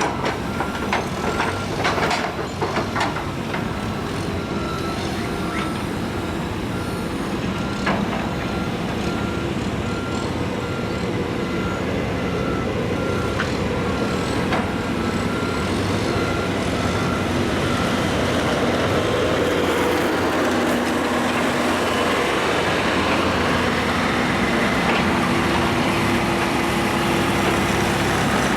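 John Deere 160G excavator's diesel engine and hydraulics running steadily under work, with a few sharp metal clanks near the start and again about 8 seconds in. Over it, a reversing alarm beeps at an even pace and stops about two-thirds of the way through.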